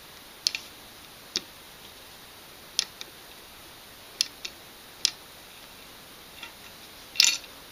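Timney trigger assembly on a Mosin Nagant action being worked by hand, giving about ten sharp, light metal clicks at uneven intervals, the loudest near the end.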